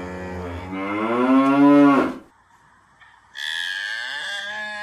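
Cow mooing: one long moo that rises in pitch toward its end. A second, higher-pitched steady call follows about three seconds in.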